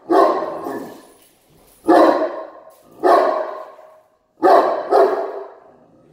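A dog barking five times at uneven intervals, the last two in quick succession.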